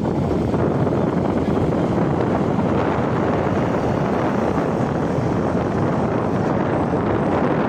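Heavy construction machine's diesel engine running steadily, with wind noise on the microphone.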